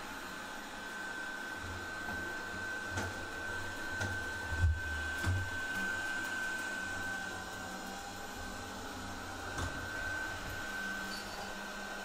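TESVOR X500 robot vacuum running: a steady whirr of its suction motor and brushes with a constant whine, and a few low thumps about four to five seconds in.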